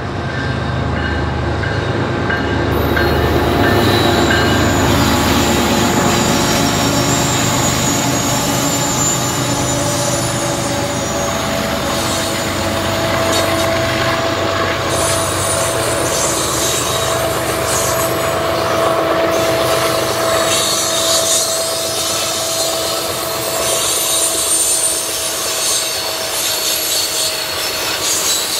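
Canadian Pacific freight train passing close by. The lead diesel locomotives' engines rumble past in the first several seconds, then coal hopper cars roll by with steady wheel-on-rail noise and a sustained high squeal from the wheels on the curve.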